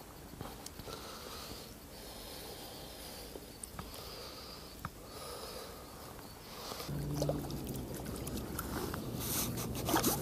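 Quiet background with a few soft clicks, then about seven seconds in a louder low rumble of camera handling and clothing rustle as the wearer crouches down.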